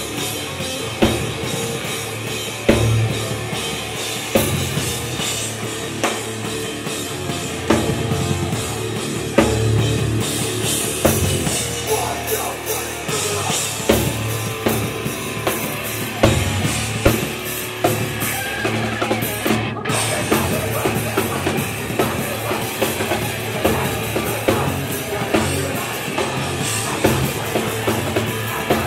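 Hardcore punk band playing a song live, with loud drum kit hits over dense amplified rock instruments.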